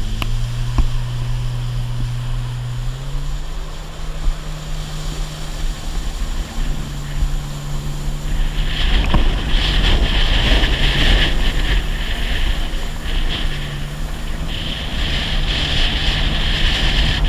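Personal watercraft engine running steadily, its hum stepping up in pitch about three seconds in. From about nine seconds a loud hiss of rushing water and wind joins it as the craft moves along the river.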